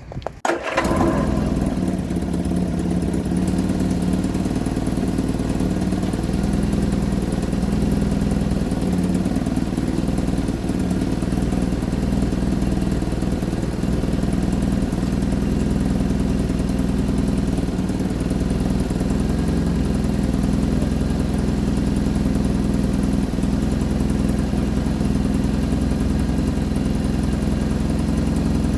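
The 1975 Vauxhall Viva HC's four-cylinder petrol engine fires up about a second in and settles into a steady idle, running cold after being restarted.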